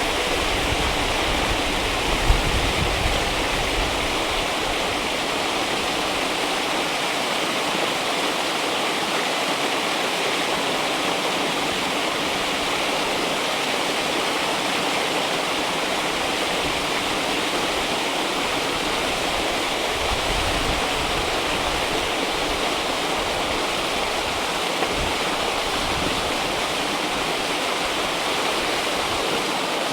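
River water rushing and splashing steadily, a dense even wash of noise, with a few low gusts of rumble and one brief louder splash about two seconds in.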